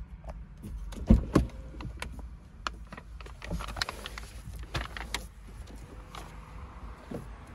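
Clicks and knocks of the driver's door of a Porsche 992 Targa being opened and someone climbing out of the seat, over a low steady rumble.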